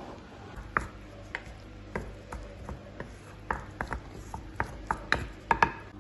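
A spoon stirring a wet mix of grated onion and tomato in an earthenware tajine base, with irregular clicks and knocks of the spoon against the clay, the loudest near the end.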